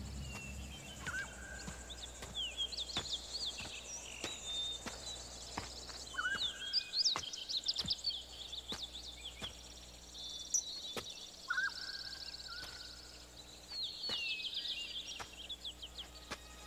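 Birds chirping and twittering in quick, high sweeps, with a lower whistled call repeated three times. Soft footsteps on dirt tick along about every half second to a second.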